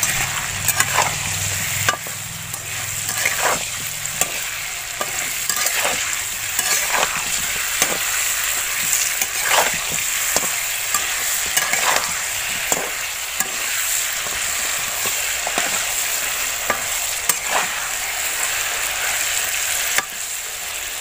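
Whole bitter gourds sizzling steadily in hot oil in a kadai, while a metal spatula scrapes against the pan one or two times a second as they are stirred.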